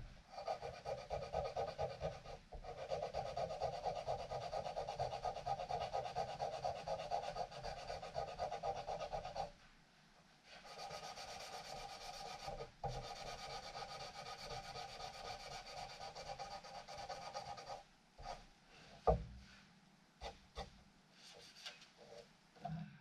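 Abrasive shaping of the metal of a ratchet being made into a karambit knife: a steady rasping in two long runs, broken by a pause of about a second near the middle. After the second run stops, a few separate knocks and clicks follow near the end.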